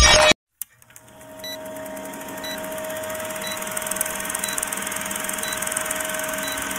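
Vintage film-projector countdown sound effect: a steady projector whir and hiss with a constant hum, marked by a short high tick about once a second. It fades in after electronic music cuts off in the first half-second.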